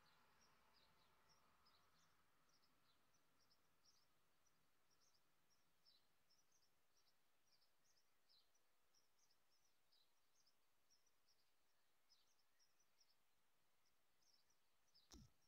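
Faint, high bird chirps, short and repeated at irregular intervals, over a very quiet outdoor background. One short knock stands out near the end.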